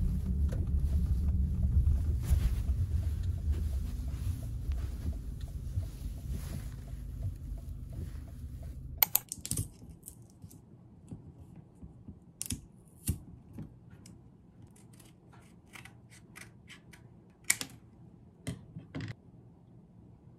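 Steady low rumble of a car's cabin while driving, with small clicks. About nine seconds in it cuts off, and sharp clicks and taps follow as a paper soy milk carton is opened and handled over a glass bowl on a kitchen scale.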